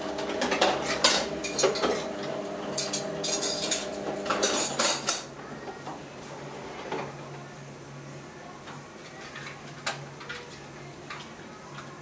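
Cockatiel's beak pecking and tapping at a hard plastic container lid: a quick, irregular run of clicks and clatter for about five seconds, then only a few scattered taps.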